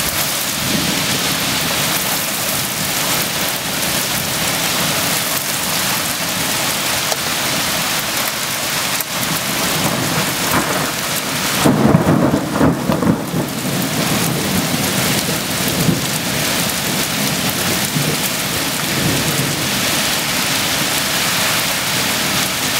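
Heavy rain pouring steadily in a severe thunderstorm. A rolling rumble of thunder comes about twelve seconds in and lasts about two seconds, with fainter rumbles before and after it.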